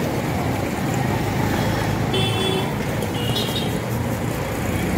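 Steady street traffic noise, with two short high-pitched toots from a vehicle horn about two and three seconds in.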